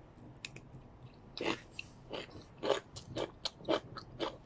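A person chewing a mouthful of stir-fried egg noodles and vegetables, with short mouth sounds about twice a second, starting about a second and a half in.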